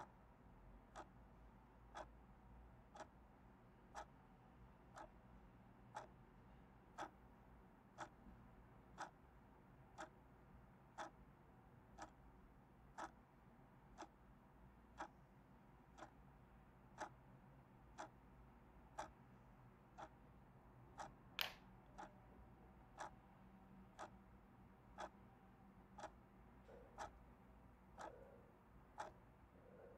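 Faint clock ticking, about once a second and very even, with one sharper, louder click a little past two-thirds of the way through.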